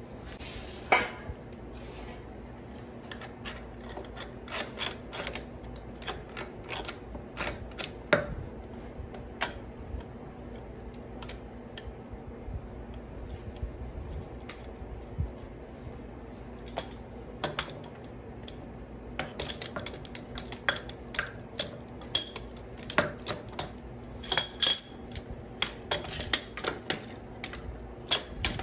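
Metal tools and steel suspension parts clinking and knocking irregularly as a coil-spring strut assembly is worked on by hand. The clinks come thicker over the last third, over a faint steady hum.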